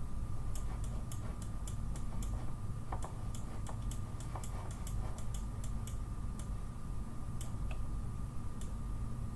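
Computer mouse clicking irregularly, a few sharp clicks a second, as stray particles are removed with a voxel-edit tool. Under it runs a steady low electrical hum and a faint steady whine.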